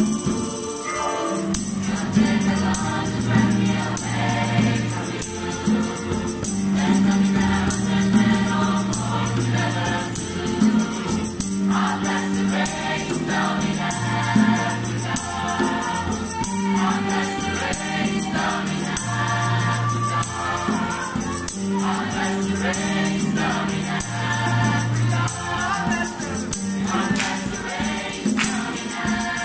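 Mixed youth choir singing in parts, with low voices holding long notes underneath. A hand drum and a small shaken percussion instrument play along.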